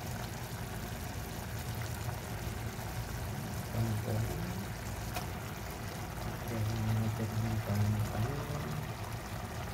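Chicken adobo bubbling in an open pot, a steady hiss of simmering sauce, while kangkong greens are tipped in from a colander. A low hum that shifts in pitch comes in briefly around four seconds and again from about six and a half to eight and a half seconds.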